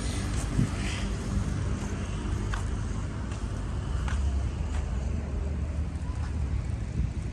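Road traffic: vehicle engines running and passing, a steady low rumble.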